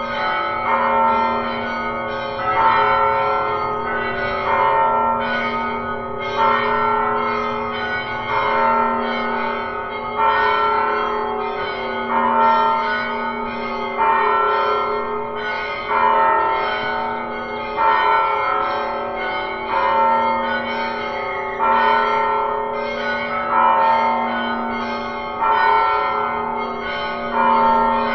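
Church bells ringing a continuous peal: several bells of different pitch struck one after another, their tones ringing on into each other, the round repeating about every two seconds.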